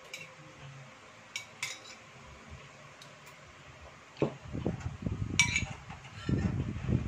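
A metal spoon clinking against a ceramic bowl a few times, then a knock about four seconds in as the bowl is set down on the table. After it come close, uneven chewing sounds with one more clink of cutlery on a plate.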